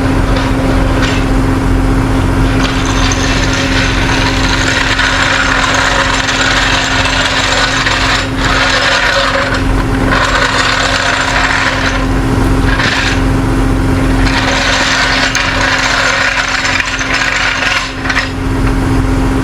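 Vehicle engine running steadily under a rough scraping, rasping noise that comes in long stretches of several seconds with short breaks.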